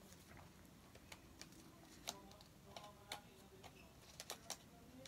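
Faint, scattered light clicks and taps of a small cardboard packet from a phone box being handled and turned over, with a few sharper clicks in the second half.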